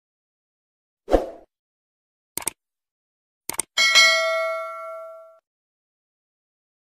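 Subscribe-button animation sound effect: a short thump, two quick double clicks like a mouse button, then a bright bell ding that rings out and fades over about a second and a half.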